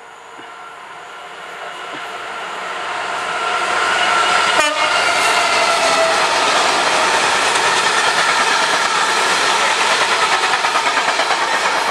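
Freight train passing on the line beside the platform. The noise builds over the first four seconds as it approaches, then holds steady as the wagons run past, with a regular clatter of wheels over the rail joints near the end.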